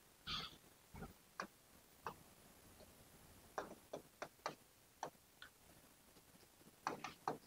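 Faint, irregular light taps and clicks, a dozen or so short ones spread unevenly, typical of writing on a board.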